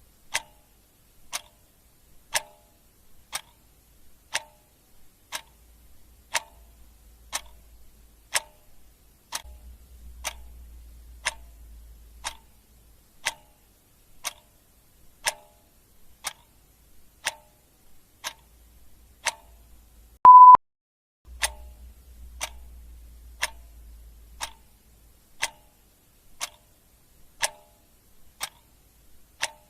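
Clock ticking steadily, one tick a second, with a single short beep about two-thirds of the way through.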